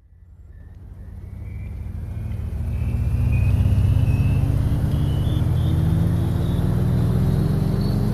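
A low engine-like drone that fades in over the first three seconds, then holds at full level while its pitch rises slowly and steadily.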